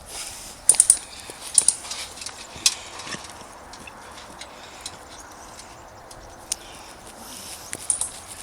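Footsteps over a dry forest floor, with a quick run of three sharp snaps just under a second in and a few more single snaps over the next two seconds.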